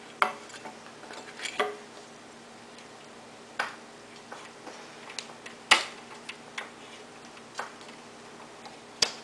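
Scattered sharp clicks and light knocks, about eight in all and the loudest a little past the middle, from handling the stopped Excalibur scroll saw's upper blade clamp and tension handle and the wooden workpiece on the table while the blade is fitted.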